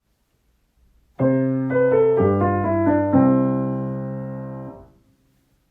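Piano playing a short sound-effect cue for children's expressive play. About a second in, a few quick notes step downward over low bass notes, then a final chord is held, fades for about a second and a half, and is released.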